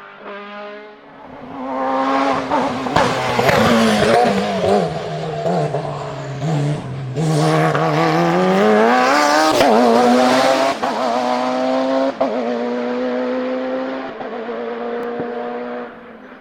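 A hillclimb racing car's engine at high revs passing close by. Its pitch falls, then climbs again as it accelerates, with several sharp cracks along the way, before it holds a steadier note and fades away near the end.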